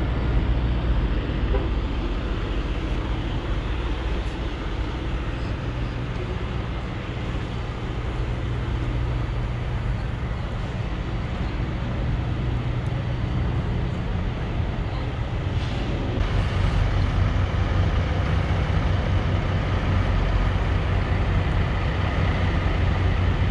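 Steady low drone of idling truck engines and passing traffic, growing louder about two-thirds of the way through.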